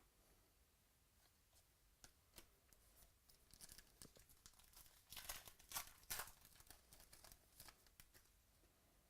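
Faint crackling rustle of a trading-card pack wrapper being torn open and crinkled, in short scratchy bursts, loudest about five to six seconds in.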